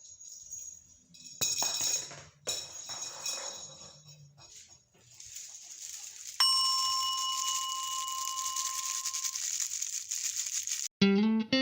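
Clicks and clatter, then a single bell-like ding that rings out for about three seconds over a steady hiss. Guitar music starts at the very end.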